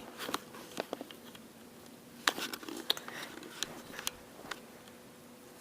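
A few scattered light taps and clicks, the loudest two a little past two and three seconds in, over a faint steady hum.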